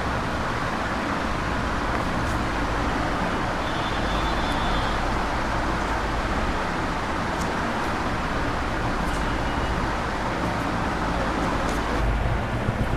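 Steady rushing background noise with a low rumble, with faint short high tones about four and nine seconds in and a few faint clicks near the end.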